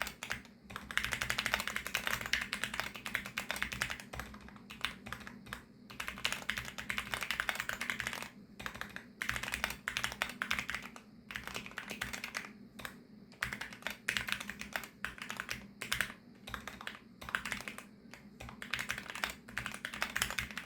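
Fast typing on a VARO V68+ 65% mechanical keyboard with factory-lubricated VARO Panda linear switches: dense runs of keystrokes broken by short pauses.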